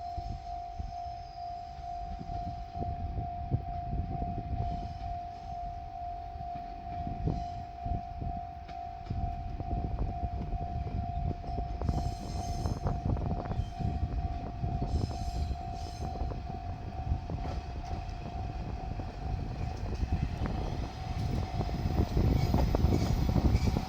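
Japanese level-crossing warning bell ringing in a steady, pulsing tone while a JR Shikoku Series 1200 diesel railcar rumbles and clanks nearer. The engine and wheel noise swell to their loudest near the end.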